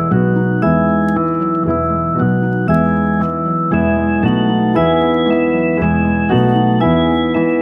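Background instrumental music on keyboard, chords and bass notes changing about every half second.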